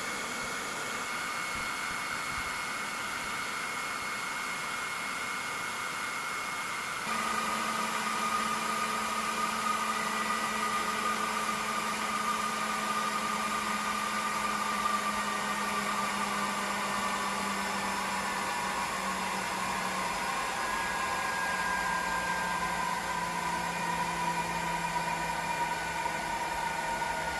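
Ingco cordless leaf blower running continuously at full trigger on its battery, a steady rushing of air with a motor whine. About seven seconds in the sound changes abruptly, a little louder, with a low hum and a higher whine that then slowly drop in pitch.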